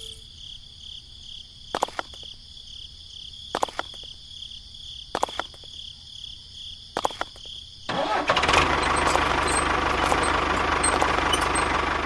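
A quiet, faint high whine with four sharp clicks about two seconds apart, then about eight seconds in a model tractor's motor starts running loudly and steadily, like an engine.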